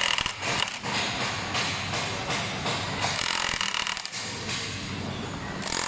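Metal tool rod worked inside the folding stem tube of a Kugoo Kirin M4 Pro electric scooter, giving irregular metal clicks and scraping over a steady low hum. A brief high squeak comes about three seconds in.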